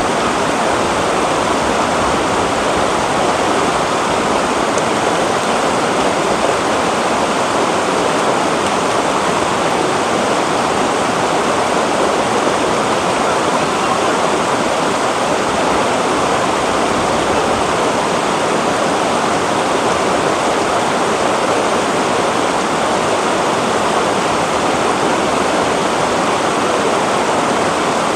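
Shallow rocky river rushing over boulders in small rapids: a loud, steady rush of water.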